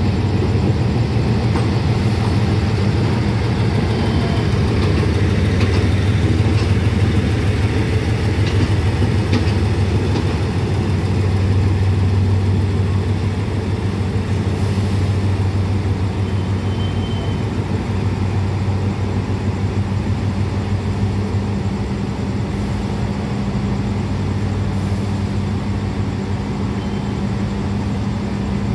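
Diesel locomotive engine idling with a steady deep drone. A few light clicks come in the first ten seconds or so.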